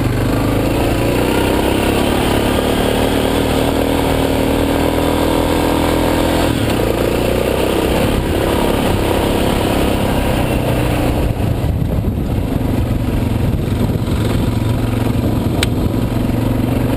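Suzuki DR650's single-cylinder engine pulling the motorcycle along a gravel trail. The engine rises and falls in pitch, then settles lower and steadier about eleven seconds in.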